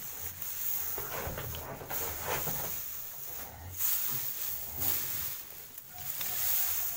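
Calves slurping and sucking watery bran mash from a basin, in irregular gulps and splashes.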